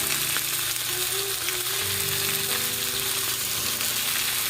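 Food frying in a hot pan, sizzling and crackling steadily as it is browned.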